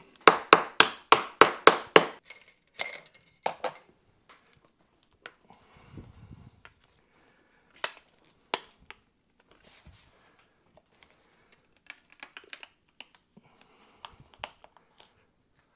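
A quick run of about eight sharp, loud snaps in the first two seconds, roughly four a second, then scattered fainter clicks and handling noises from small parts being worked by hand.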